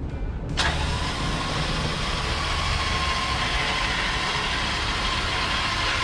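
Electric winch on the truck's front bumper running at a steady speed: a whining hiss with one steady tone switches on about half a second in, holds for about five seconds and cuts off. A low engine rumble runs under it.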